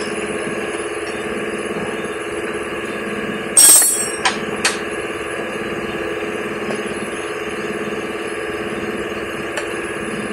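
A loud metallic clank with a brief ringing about three and a half seconds in, followed by two lighter metal clinks, as metal tools or parts strike each other under a car on a lift. A steady mechanical hum of a running machine or engine runs beneath.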